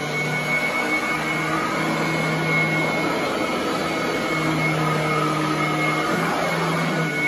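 Royal commercial upright vacuum cleaner running on carpet: a steady, loud, screaming motor whine with a high tone over the rush of air. Its low hum wavers slightly in pitch as the nozzle is pushed over the pile.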